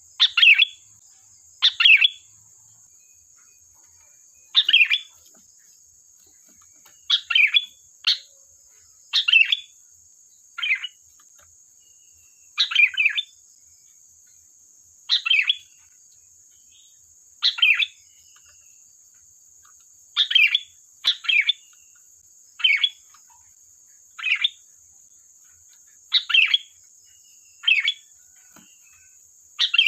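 Sooty-headed bulbul (kutilang) giving short, loud chattering calls over and over, one or two every couple of seconds. A steady high-pitched hiss runs underneath.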